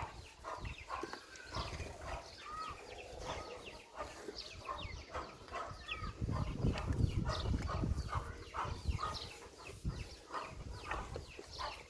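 Farmyard sounds at a cattle dairy farm: many short high chirps throughout, with a louder low rumble from about six to eight seconds in.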